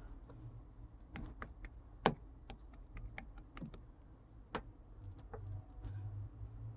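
Pink clear slime being pressed and squished by hand, trapped air popping in a quick, irregular run of small sharp clicks, one louder pop about two seconds in.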